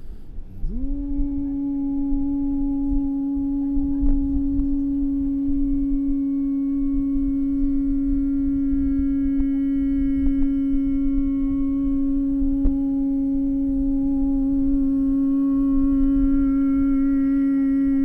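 A man's voice sounding one long, steady toning note meant as a D, the tone for the sacral. It slides up into pitch about half a second in and is held without a break, growing slightly brighter near the end.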